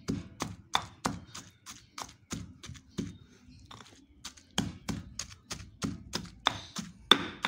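Stone pestle pounding shallots, garlic and coriander into a spice paste in a stone mortar. The dull knocks come at about three a second and slacken briefly about halfway through.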